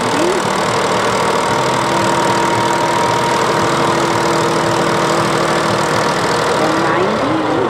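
Volvo BM 350 tractor engine running steadily under load as it drags a weight-transfer pulling sled.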